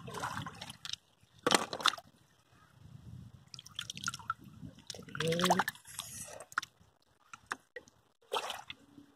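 Shallow river water splashing and dripping as hands dip into it and lift out stones, in short irregular bursts, the loudest about one and a half seconds in.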